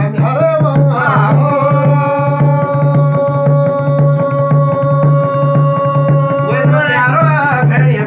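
A male folk singer sings a Garhwali jagar with a small laced hand drum keeping a steady beat. He sings a short phrase, holds one long note for about five seconds, then moves on to the next phrase near the end.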